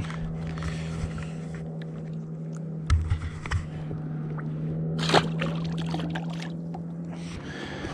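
A boat's motor humming steadily at one pitch, stopping shortly before the end. A few knocks come around three seconds in and a sharp, louder sound about five seconds in.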